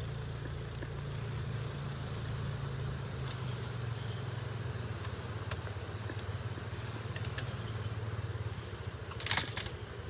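Beach ambience: a steady low rumble, likely wind on the microphone, over a faint wash of gentle surf, with a few light clicks and one short burst of hissy noise about nine seconds in.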